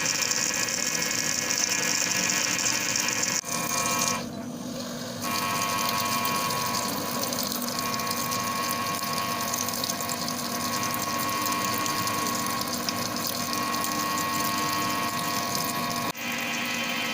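CNC wire-cut EDM machine running: a steady hum and whir with several held tones. It breaks off suddenly twice, about three and a half seconds in and near the end, with a quieter second just after the first break.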